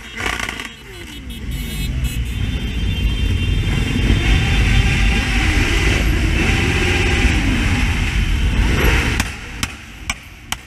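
A large pack of motorcycles riding together, including the camera bike's Honda CB600F Hornet inline-four, engines revving and rising and falling in pitch over heavy wind rumble on the bike-mounted action camera. Near the end it drops quieter, with a few sharp clicks.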